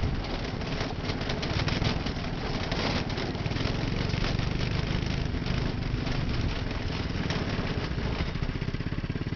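Go-kart engine running steadily as the kart drives along, heard from the driver's seat.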